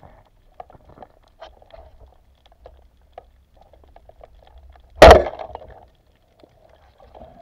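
Band-powered speargun firing underwater: one sudden loud thunk about five seconds in, trailing off over most of a second, over faint underwater crackling and clicks.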